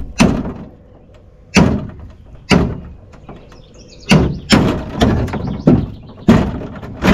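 Hammer blows on the metal rail of an old jon boat, knocking loose a rusted bolt: about nine sharp metallic strikes, spaced out at first and coming faster after about four seconds.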